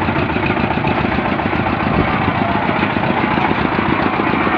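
Stationary diesel engine on a borewell drilling rig running steadily with a rapid, even chug.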